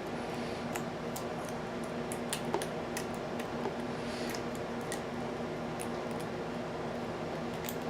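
Small irregular metallic ticks and clicks from a lock pick working the pin stack of an American Series 700 padlock's APTC-12 cylinder with serrated spool pins, over a steady low hum.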